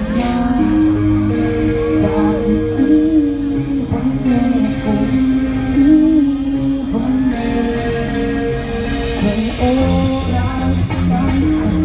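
Live rock band playing, with a singer holding long, steady notes over guitar.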